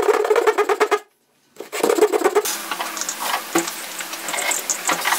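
Rapid back-and-forth strokes of sandpaper, wrapped around a ruler, rubbing on a small wooden part; they break off briefly about a second in and resume. Then comes lighter scratching with scattered small clicks as a metal pick works the tiny wooden piece.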